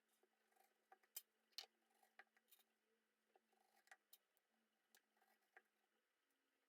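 Knife cutting fresh pineapple flesh away from the inner core: faint, irregular clicks and slicing sounds, a few a second, the loudest about a second and a half in.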